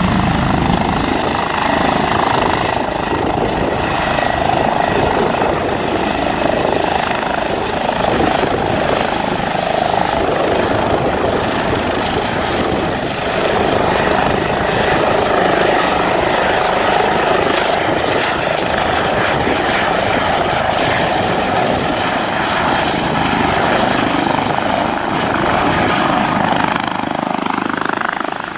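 Airbus H145 air ambulance helicopter hovering low, its rotor and turbines making a loud, steady whir that dips slightly near the end as it hangs farther off.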